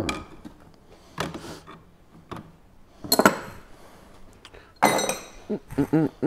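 Metal engine parts and tools clinking and knocking as they are moved about on a workbench: several separate sharp strikes, one about five seconds in ringing briefly.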